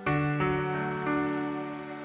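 Slow, gentle instrumental background music: a chord struck at the start and a few more notes that ring out and slowly fade.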